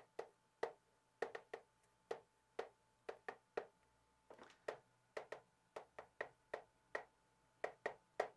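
Chalk on a chalkboard as characters are written: a quick, uneven series of short sharp taps, about two or three a second, with one slightly longer scrape a little past the middle.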